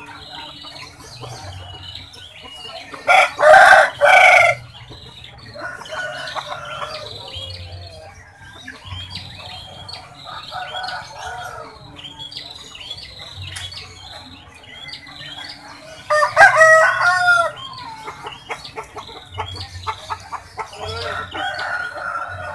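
Rooster crowing twice, about three seconds in and again about sixteen seconds in. The first crow is short and broken into three parts: this rooster's unusual crow is said to sound like the name "Jokowi".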